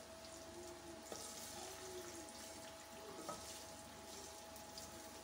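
Faint sizzling of vermicelli frying in ghee in an aluminium pot, with a wooden spatula stirring and scraping through it as the vermicelli browns.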